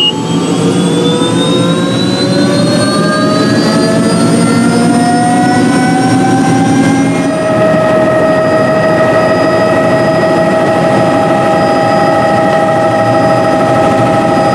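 Bell 206 JetRanger turbine helicopter heard from inside the cabin: the turbine whine rises steadily in pitch for about seven seconds as engine and rotor come up to flying speed, then holds steady as the helicopter lifts off and flies, over a constant low rotor rumble.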